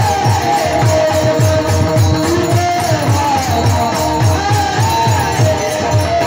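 Marathi kirtan devotional music: a drum keeps a quick, steady beat of about four strokes a second under a wavering melody line, with jingling percussion.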